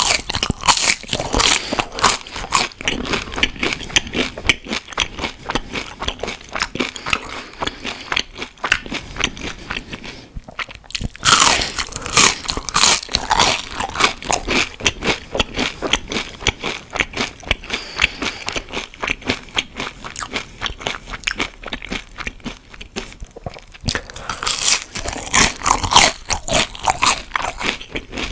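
Close-miked crunchy biting and chewing of fried onion rings, a rapid run of sharp crunches. Louder bouts of crunching come about a second in, again about eleven seconds in, and near the end.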